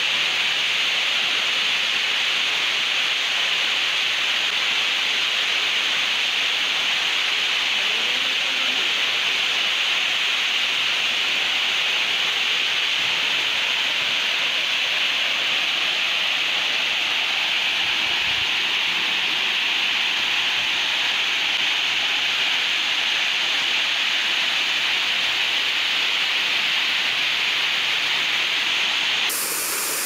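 Waterfall pouring over layered rock ledges: a steady, even rushing hiss of falling water. It changes abruptly in tone just before the end.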